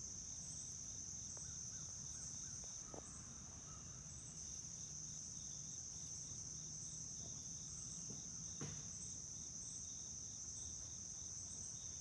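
Faint insect chorus: a steady high trill with a second chirp pulsing about three times a second beneath it, and a single faint click about two-thirds of the way in.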